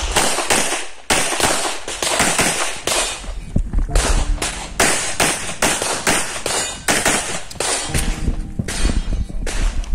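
Rapid string of pistol shots from a Beretta 92X, fired at about two to three shots a second throughout an IPSC stage run.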